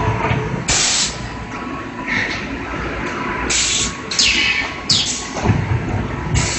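PS foam food container forming, cutting and stacking machine running: about five short, sharp hisses of air, a few falling in pitch, over a steady low machine rumble.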